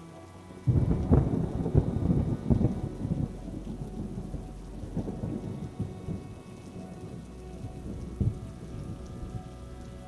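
A thunderclap breaks in suddenly about a second in over steady rain, rumbling and crackling for several seconds as it fades, with one more sharp crack about eight seconds in.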